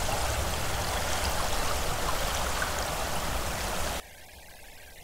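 Waterfall rushing, as recorded on Earth. About four seconds in it cuts abruptly to a much quieter, thinner version of the same sound, processed by software to simulate how a waterfall would be heard on Titan.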